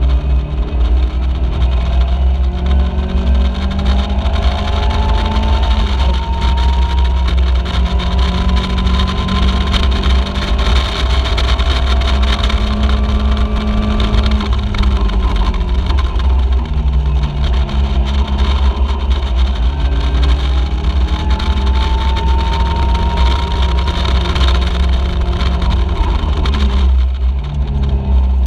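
Onboard sound of a Caterham Seven race car's engine at racing speed, its pitch climbing in long sweeps as it pulls through the gears and dropping near the end as it comes off the throttle. A steady low wind rumble runs under it.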